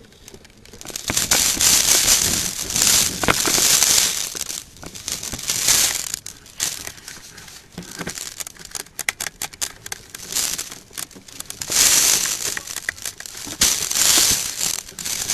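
Loud rustling and crinkling that comes and goes in swells, from clothing and gear rubbing close to the microphone as the wearer moves, with scattered sharp clicks.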